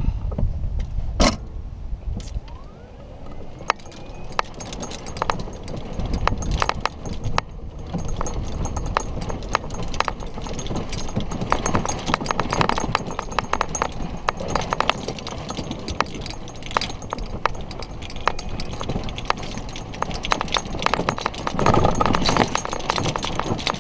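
Golf cart being driven over the course, rattling and clicking steadily over bumps with a low rumble, and a louder rumble near the end.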